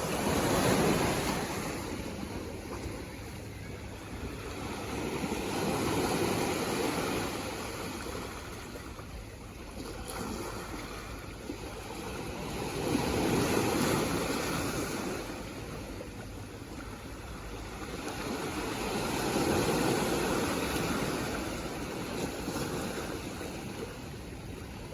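Sea waves washing onto the shore, swelling and falling away in slow surges about every six to seven seconds.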